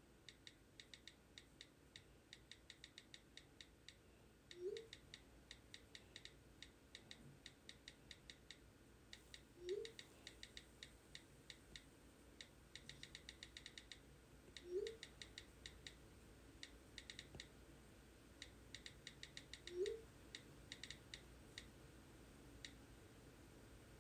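Faint bursts of quick keyboard-typing clicks, several runs of rapid taps, with a short rising tone sounding about every five seconds.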